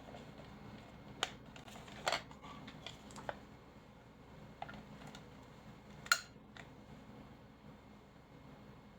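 Scattered sharp clicks and taps as RJ45 connectors, network cable and tools are handled during checking of the crimped plugs. There are about five louder clicks, the loudest about six seconds in.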